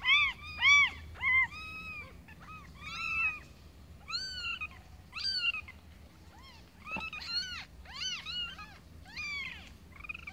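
Newborn kittens mewing: short, high-pitched, arched cries repeated over and over, the loudest three coming quickly one after another at the start.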